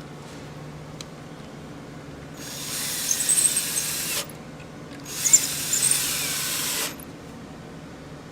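Power drill driving screws into cedar boards: two steady runs of about two seconds each, one after the other.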